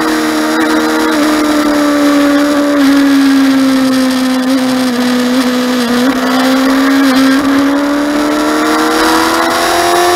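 Motorcycle engine heard from on board, held at steady high revs. Its pitch sags slowly toward the middle and climbs again near the end as the throttle is eased and reopened.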